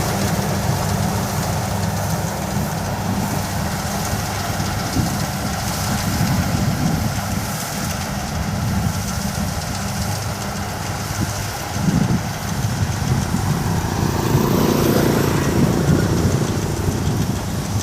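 Kubota DC60 combine harvester running steadily, its engine hum joined by the rough, noisy sound of the machine at work, briefly louder about two-thirds of the way through.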